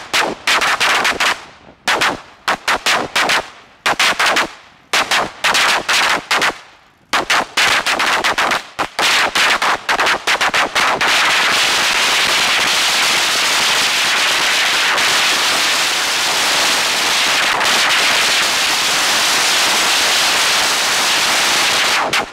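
A long string of red firecrackers going off. For the first half, rapid cracks come in uneven clusters with short gaps; after that they merge into an unbroken dense crackle that stops suddenly at the end.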